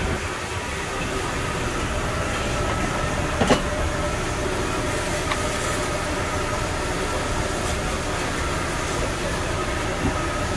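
Steady roar of a busy noodle-shop kitchen with a faint hum, and one sharp clink about three and a half seconds in.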